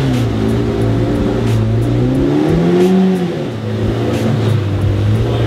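Lamborghini Murciélago's V12 engine running and revving, its pitch rising and falling back about three seconds in, with music playing under it.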